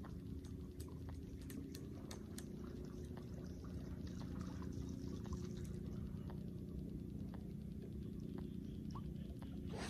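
Small splashes and patter as a lizard bait is worked on the surface of the water, over a steady low hum, with a louder splash near the end.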